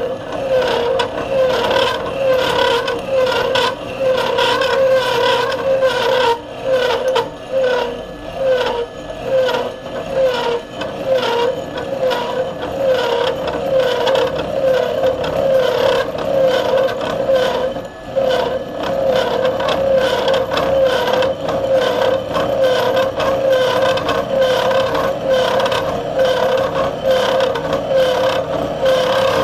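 Bridgeport milling machine taking a slotting cut in 4140 steel with a 3/16-inch disc milling cutter: a steady singing tone with a scraping, rasping edge that wavers in a regular rhythm about twice a second.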